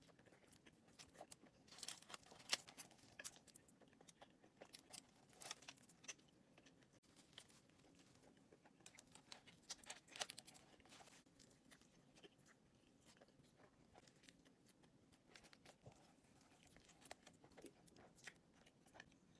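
Close-miked biting and chewing of a burrito: quiet, irregular crunching and crackling clicks, the sharpest about two and a half seconds in.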